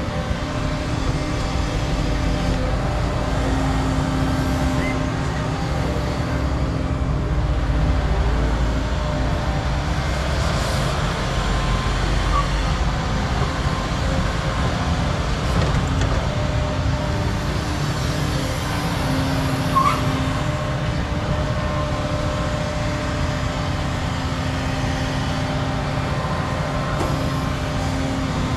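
Hydraulic excavators at work: the diesel engines of a Cat 335 and a Volvo excavator run steadily under load. Their hum swells and eases as they dig and swing, and there is one brief knock about two-thirds of the way through.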